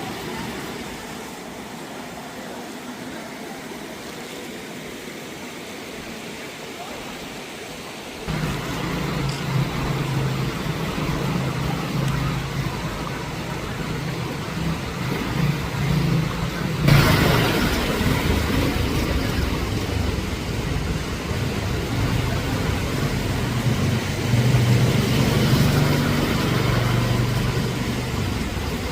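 Road traffic: a motor vehicle's engine running with a low steady hum over road noise. It comes in suddenly about eight seconds in, with louder surges twice later on.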